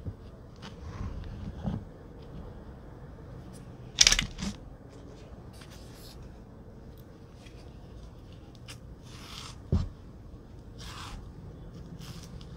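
Quiet handling of food on a table, with a sharp tap about four seconds in and a duller knock later on, then soft tearing rustles as a banana's peel is pulled back.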